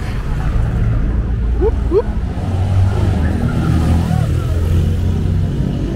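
Street traffic passing close by: the low, steady rumble of car engines, with a motorcycle's engine going past in the middle.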